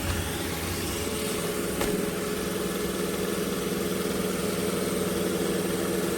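iRobot Roomba j7+ robot vacuum running, a steady motor hum with a faint click about two seconds in.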